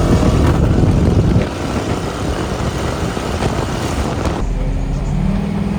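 A motor vehicle's engine running, louder for the first second and a half, then a steadier low hum setting in near the end.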